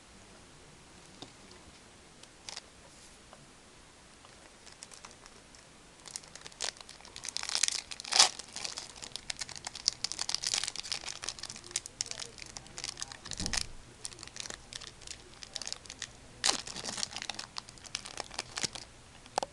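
A foil booster-pack wrapper crinkling and being torn open by hand: a quiet first few seconds, then dense crackling from about six seconds in, loudest near eight seconds, with one dull knock about midway.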